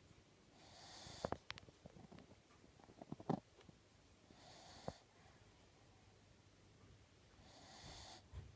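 A sleeping pet snoring faintly: three breathy snores about three and a half seconds apart, with a few short clicks in between.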